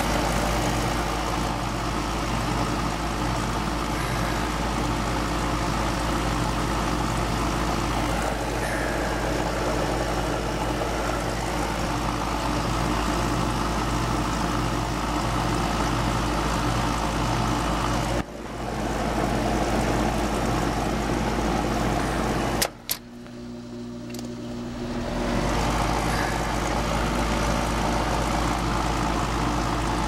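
Air-conditioning condensing unit running during a refrigerant pump-down, compressor and condenser fan giving a steady mechanical hum. About two-thirds of the way through it cuts out with a click, then builds back up over a couple of seconds.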